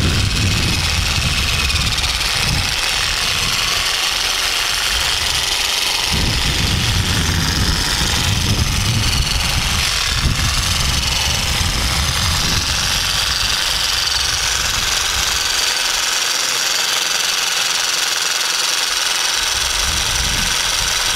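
Jigsaw percussive massage gun running steadily, its motor buzzing as the head pulses along the back muscles beside the spine. The deeper part of the sound drops away twice for a few seconds.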